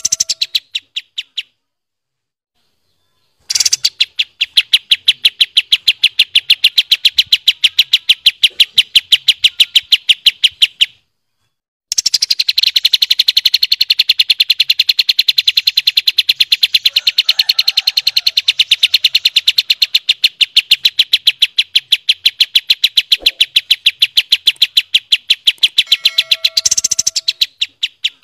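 Pied triller (kapas tembak) singing its long, rapid rolling trill of sharp repeated notes, about eight a second. One trill lasts about seven seconds and, after a second's pause, another lasts about fifteen.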